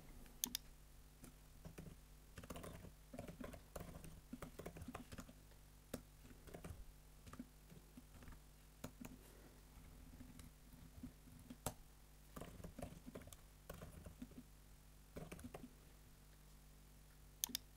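Faint typing on a computer keyboard: irregular keystrokes in short runs, with a couple of sharper clicks near the end.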